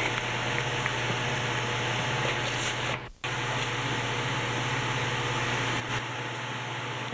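Steady hiss with a low hum from an old VHS tape recording, broken by a brief dropout about three seconds in.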